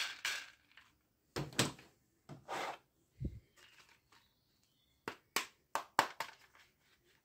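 Hard plastic toys handled by hand: scattered knocks and rustles, a low thump near the middle, and a quick run of sharp plastic clicks in the second half.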